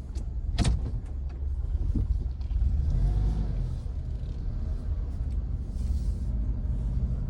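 2006 Honda CR-V running and moving with a steady low rumble and a single click under a second in, with no grinding from its freshly refilled rear differential.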